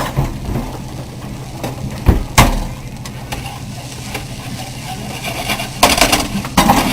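Boiled potatoes and onions frying in butter and oil in a hot pan over a steady low hum, with sharp knocks of a utensil against the pan twice about two seconds in and a flurry of scraping and knocking near the end as the potatoes are stirred to brown.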